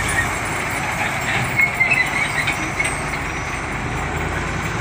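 Heavy container truck driving slowly past, its diesel engine running and tyres on a rough road. A few short high-pitched sounds stand out about two seconds in.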